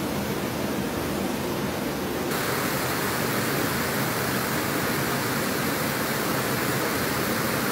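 Rushing floodwater: a steady, even rush that turns hissier and a little louder about two seconds in.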